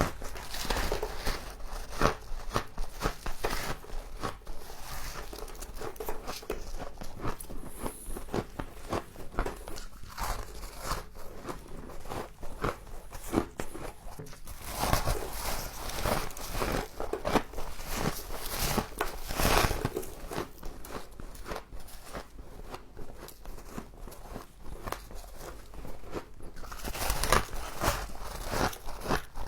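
A person biting and chewing mouthfuls of frost close to the microphone: dense, irregular icy crunching and crackling, with louder bursts of crunches about halfway through and again near the end.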